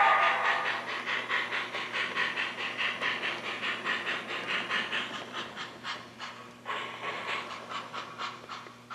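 Sound decoder of an HO scale model steam locomotive chuffing in a steady rhythm, about three chuffs a second, growing fainter near the end.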